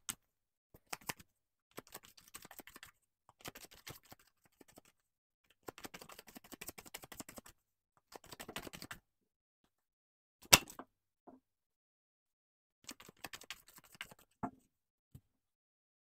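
A deck of tarot cards being shuffled by hand, in several separate runs of quick clicking and rustling card edges. One sharp tap about ten seconds in is the loudest sound.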